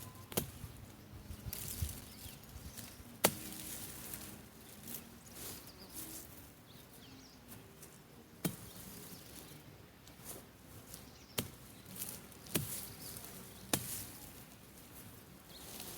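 Dry vegetation rustling and swishing, with about six sharp snaps or chops spread unevenly through it.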